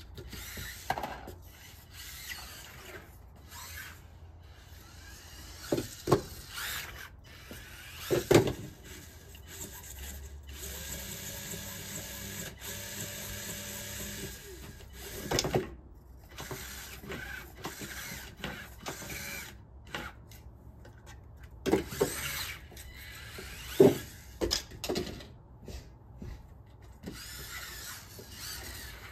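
Losi Micro-B micro RC buggy's small electric motor whining as it drives over wooden deck boards and plywood ramps, steadiest in the middle, with several sharp knocks as it lands jumps and crashes.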